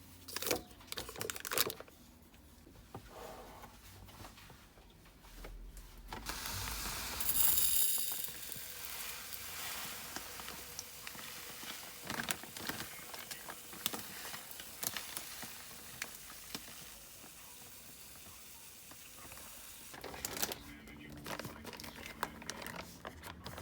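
Kitchen cleaning sounds: crinkling, rustling and light clatter of things being handled, with a steady hiss of running water for several seconds in the middle.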